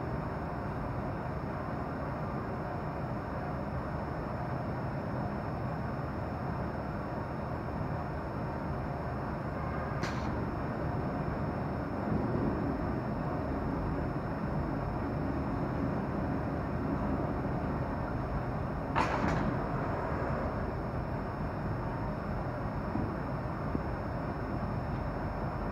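Dust filter mesh tube forming machine (D161 W type) running steadily, with a faint high whine over its noise. It gives two brief sharp sounds about nine seconds apart; the second is louder and trails off briefly.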